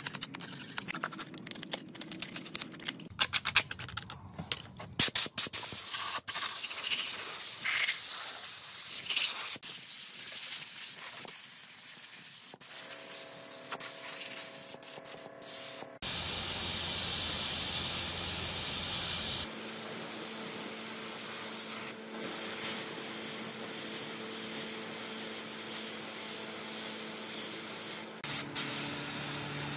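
Irregular scraping and clicking of a tool on a dirty engine casing, then about halfway in a compressed-air blow gun hissing as it blows dust off the cast-iron engine block, loudest for a few seconds and then steady.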